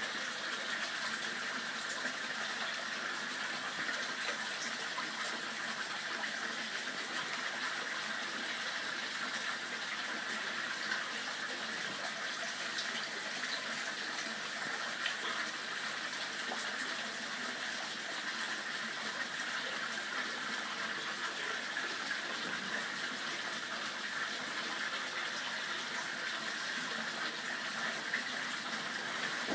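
Waterfall pouring a curtain of water into a pond, a steady, unbroken splashing rush.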